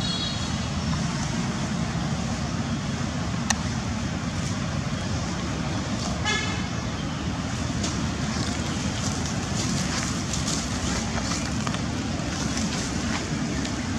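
Steady low background rumble with two short high-pitched squeaking calls, one right at the start and one about six seconds in, and a single sharp click about three and a half seconds in.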